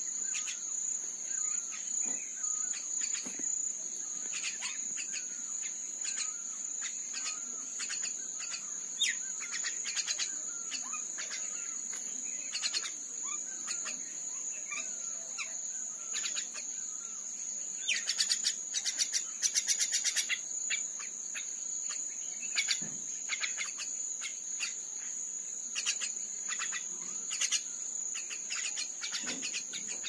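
A steady high-pitched insect trill with frequent short bird chirps and calls over it, thickening into a fast run of chirps about two-thirds of the way through.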